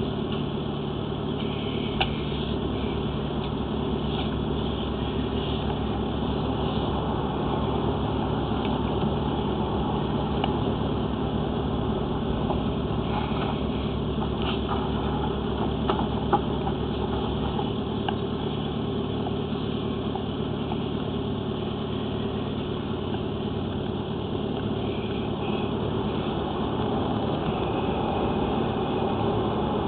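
A machine or motor running steadily with a low hum, with a couple of short knocks about two seconds in and again around sixteen seconds in.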